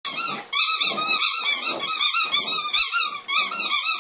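Bernese mountain dog puppy whining, a run of high, wavering whines with short breaks between them.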